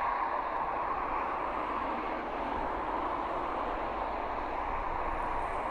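Passenger train's wheels rolling on the rails as the train moves away, a steady even rushing hum with no distinct wheel clicks.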